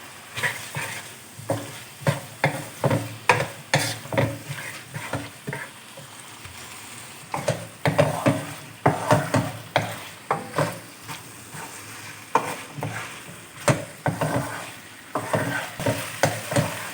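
Spatula scraping and tossing spaghetti in a hot pan with its sauce and vegetables, over a steady frying sizzle: irregular scrapes and knocks, easing off briefly twice.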